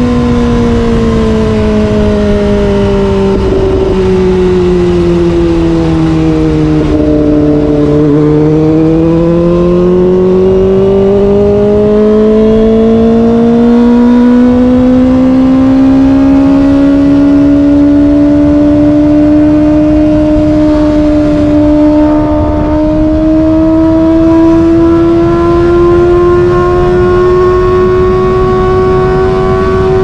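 Kawasaki ZX25R's 250 cc inline-four engine, heard from onboard under wind rush. The engine note sinks for the first eight seconds or so as the throttle is eased, then climbs slowly and steadily without a shift for the rest as the bike accelerates along the highway.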